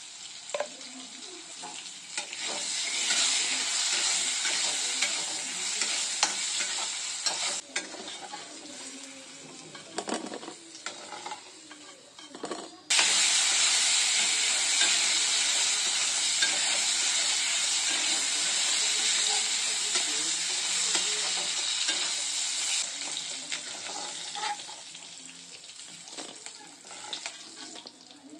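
Pointed gourd pieces frying in hot oil in a kadai, a steady sizzle with a few sharp spatula knocks and scrapes. About halfway through the sizzle jumps louder and holds: prawns frying in the oil and stirred with a metal spatula, easing off near the end.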